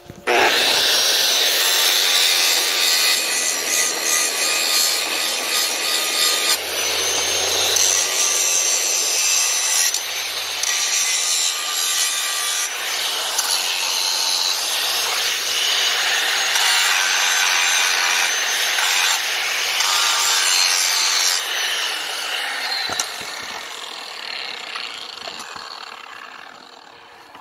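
Electric angle grinder with an abrasive disc grinding metal, a loud steady grinding with a high whine above it. Near the end the whine falls and the sound fades as the disc winds down.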